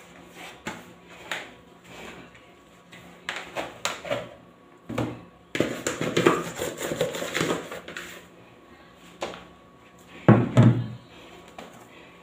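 Dough being turned out of a plastic mixing bowl and kneaded by hand on a countertop: scattered light knocks, a busy stretch of bowl and hand rubbing and knocking in the middle, and one heavy thump about ten seconds in as the dough is pressed down on the counter.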